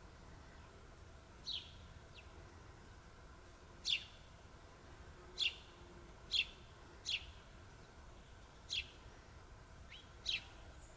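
Small songbird giving single short, sharp chirps, each falling quickly in pitch, about eight of them at irregular gaps of one to two seconds.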